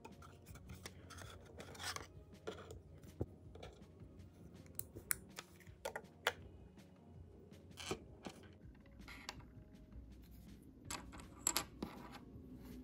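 Faint, irregular clicks and taps of metal tweezers and small plastic miniature pieces being handled and set down on a tabletop.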